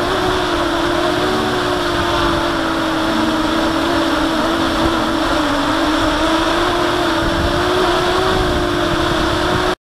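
Blade 350QX quadcopter's four brushless motors and propellers heard from its own onboard camera: a steady drone with a slightly wavering pitch over rushing air noise, cutting off abruptly near the end.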